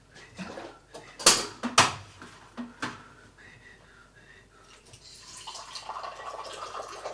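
A few sharp clinks of glass and metal tea things on a tray, then from about five seconds in a steady stream of tea poured from a raised metal teapot into a glass.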